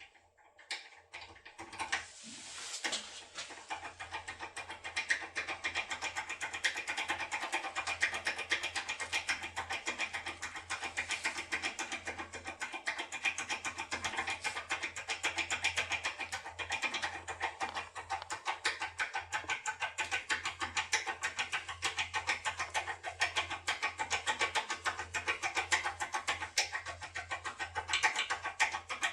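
A foil pick tool being worked back and forth inside an ASSA ABLOY lock cylinder: a dense, continuous run of fast small metallic clicks and scrapes, starting about two seconds in.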